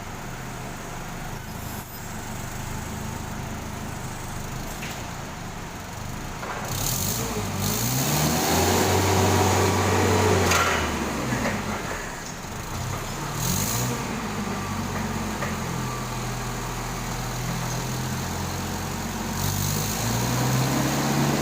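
Forklift's H20 engine running after its loose idle connection was fixed. It is revved up and let back down several times, with the biggest rise and fall about eight to twelve seconds in and another rise near the end.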